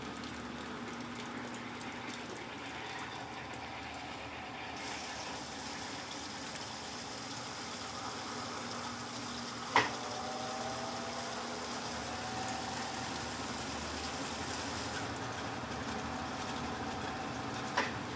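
Electrolux LTC15 top-loading washing machine running steadily through its spin cycle, with two sharp knocks, one about ten seconds in and one near the end.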